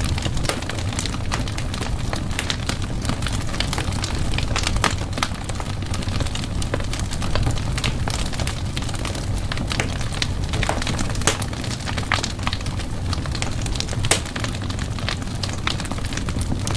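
Wood fire burning in a fireplace, crackling with frequent irregular sharp pops and snaps over a steady low rumble.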